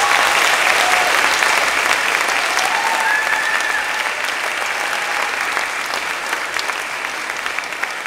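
Audience applauding: steady clapping that is loudest at the start and slowly dies away toward the end.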